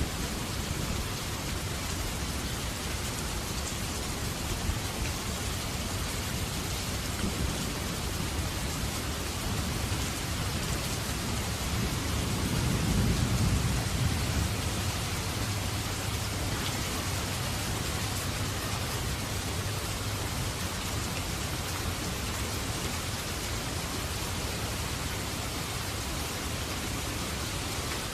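Steady heavy rainfall, with a low rumble of distant thunder swelling and fading about halfway through.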